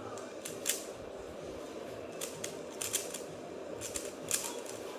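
Irregular clicking of a plastic 3x3 Rubik's-type cube with transparent pieces as its layers are turned quickly during a solve, over a steady background hum.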